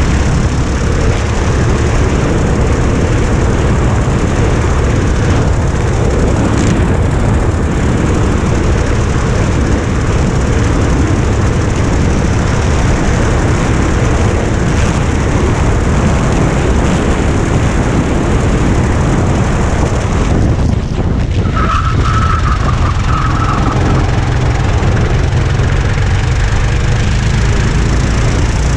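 Racing kart engine running hard at speed, recorded onboard the kart, with a brief easing of the sound about twenty seconds in.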